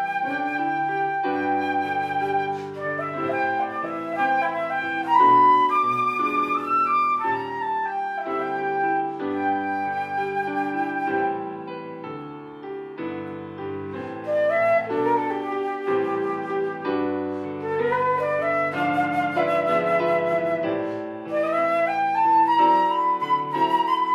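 Instrumental music: a flute-like melody of held and gliding notes over sustained piano or keyboard chords.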